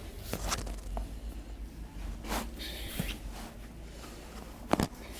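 Rustling and handling noise during a hands-on neck treatment, with a few scattered sharp clicks; the loudest is a quick double click near the end.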